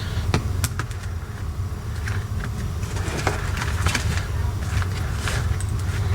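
Light clicks and knocks of handle parts being handled and fitted together, over a steady low rumble.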